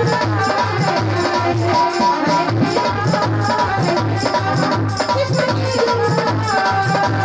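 Live Indian devotional bhajan music: a dholak drum keeps a steady beat of about two strokes a second under jingling hand percussion and a keyboard melody, with a woman singing into the microphone.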